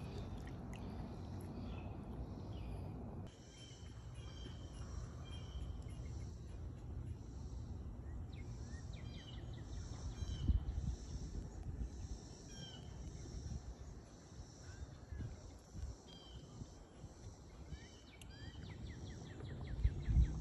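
Outdoor lake ambience: scattered short bird chirps and calls over a steady low rumble, with one brief low thump about halfway through.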